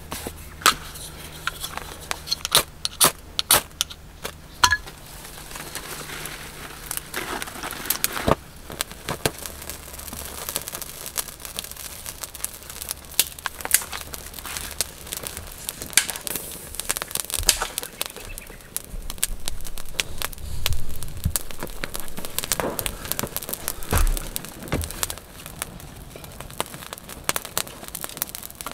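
Small campfire of dry twigs, moss and birch sticks crackling as it burns, with many irregular sharp snaps and pops. There are a couple of dull thumps in the second half.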